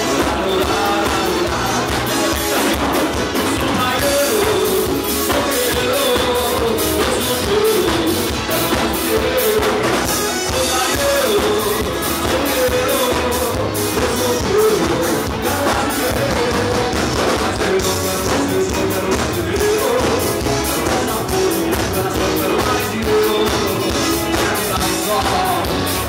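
Loud amplified live band music with a singer over a steady beat, heard from within the crowd.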